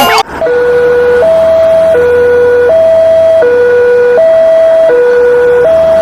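Two-tone hi-lo siren, like a European ambulance: two electronic tones alternating low-high, each held about three quarters of a second. It starts about half a second in, right after a busier, warbling sound cuts off.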